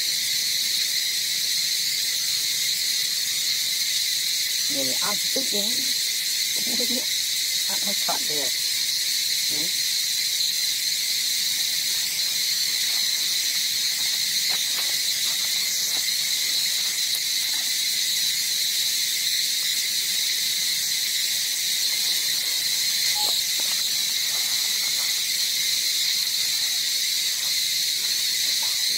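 Steady, high-pitched chorus of insects droning without a break. A few short, pitched voice-like calls stand out between about five and ten seconds in.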